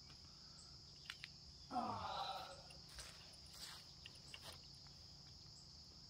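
Faint, steady high-pitched drone of insects in the yard, with a short falling voice-like sound about two seconds in and a few light clicks.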